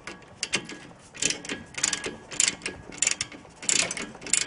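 Ratcheting wrench clicking in short bursts, about one burst every half second, as it is swung back and forth loosening the 17 mm nut on a front sway bar end link.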